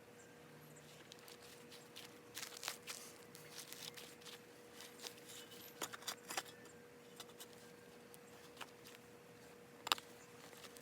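Shovel digging in rocky soil: irregular faint scrapes and clinks of the metal blade against soil and stones, with one sharper clink near the end, over a faint steady hum.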